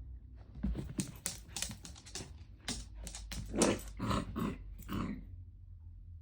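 German shepherd dog making a run of short, rough vocal sounds mixed with sharp clicks, about a dozen in all, the fuller, louder ones coming in the second half.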